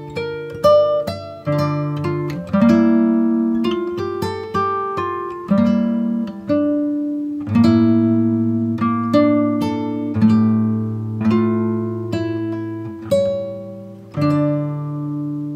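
Background music: a guitar picking a melody over chords, each note struck and fading.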